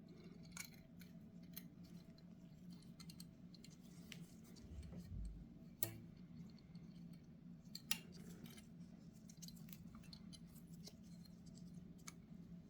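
Small metal clicks and taps of hand tools and carburetor parts being handled during disassembly, sparse and faint, with two sharper clicks near the middle. A steady low hum runs underneath.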